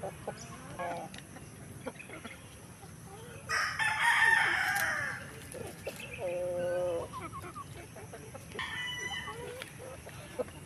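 Chickens clucking and calling, with a rooster crowing. The loudest call starts about three and a half seconds in and lasts over a second, and a second drawn-out call follows around six seconds in.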